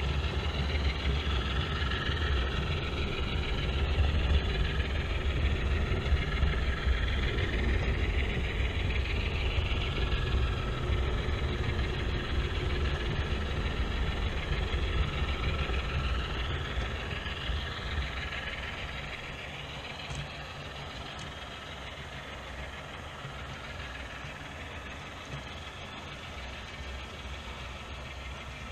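HO scale model freight train running past behind two ES44AC diesel model locomotives: a low, steady engine-like rumble from the locomotives, which fades about two-thirds of the way through as they pass. After that comes the quieter rolling rattle of the freight cars on the track.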